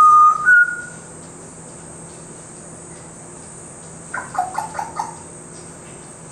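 African grey parrot giving two clear whistles, the second a little higher, then about four seconds in a quick run of short chirping notes.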